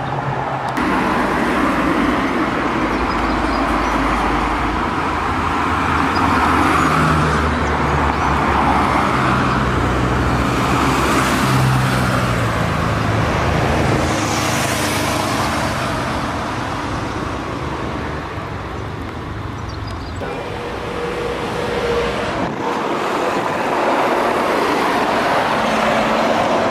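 Car traffic: several car engines running and moving past together as a steady din, their pitches rising and falling as different cars come and go.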